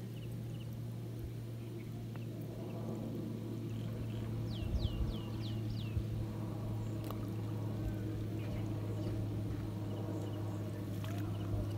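A motor running steadily with a low, even hum. About four and a half seconds in, a bird gives a quick run of five high, falling notes.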